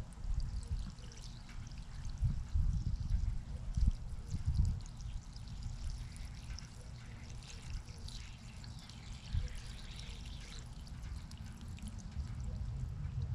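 Water being poured onto wilted plants and soil, a continuous uneven splashing trickle, with irregular low rumbles underneath.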